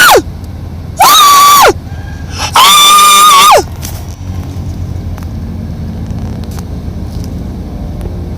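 A pet animal calling loudly three times, each call rising in pitch, holding, then sliding down; the third call is the longest, about a second.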